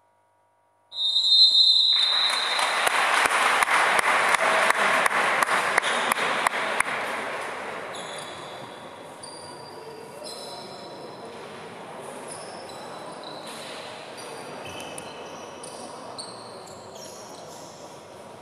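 A short high whistle blast, then the sparse crowd in a basketball arena applauding for about five seconds, fading into the hall's background noise. Short high squeaks, like basketball shoes on the court, come and go after the applause.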